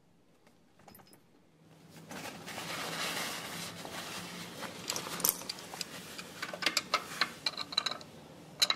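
Cloth rag rubbing and scuffing over the brass union nut of a diesel injection pump's high-pressure fuel line, with small metallic clicks, after a second or two of quiet. Near the end comes the clink of a steel open-end wrench being set on the nut.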